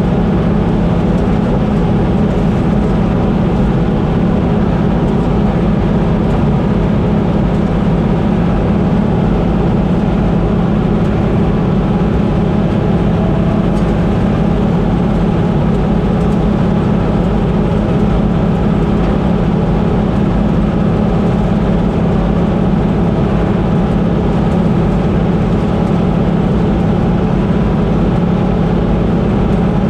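Combine harvester running steadily under harvest load, a constant heavy machinery drone with a strong low hum.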